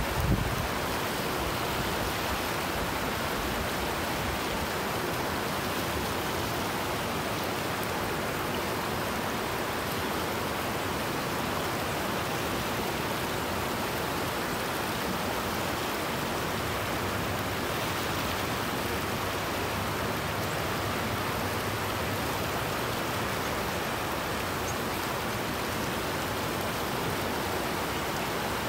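Fast river water rushing over rocks in rapids, a steady even rush. A brief low thump at the very start.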